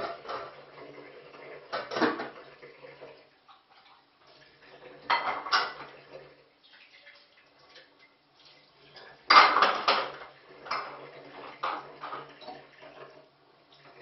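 Dishes, pots and cutlery clinking and clattering in a kitchen sink as they are washed by hand, in bursts every few seconds. The loudest clatter comes about nine seconds in.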